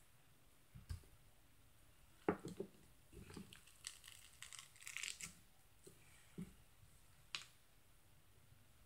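Faint squishing and crackling of slime being pressed by hand through a wire mesh grid. There are scattered soft clicks, with a short run of crackles about four to five seconds in.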